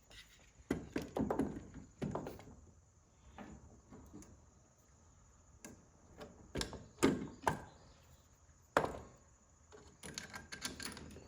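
Scattered knocks and clunks of metal parts and tools being handled while a replacement starter motor is fitted to a Ford 4000 tractor, with the sharpest knocks in the second half.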